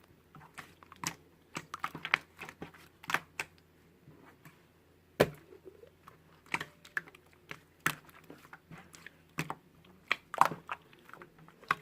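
Irregular clicks and taps, some sharp and louder, in no steady rhythm, over a faint low hum.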